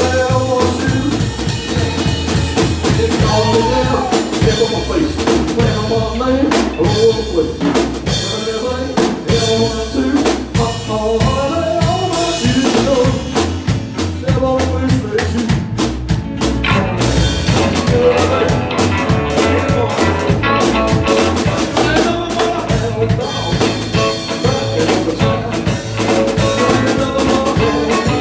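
Live band playing a rock song on electric guitar, electric bass and drum kit, with a steady drum beat.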